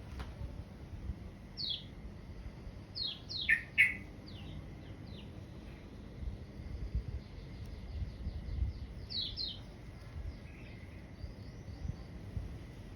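Small birds chirping: short, sharp, high notes that sweep downward, heard singly and in quick pairs and runs, loudest as a pair about four seconds in and a cluster around nine seconds.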